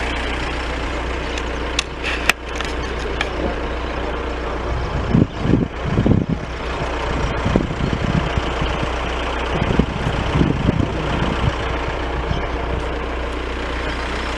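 A motor vehicle engine running steadily, with irregular louder low surges about five seconds and ten seconds in.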